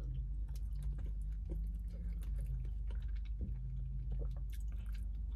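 Close-up mouth sounds of a person chewing a spoonful of wild rice soup: soft, wet chewing with many small clicks, over a low steady hum.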